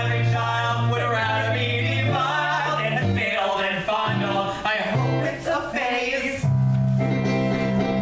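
Male voices singing a show tune live, accompanied by keyboard and electric guitar.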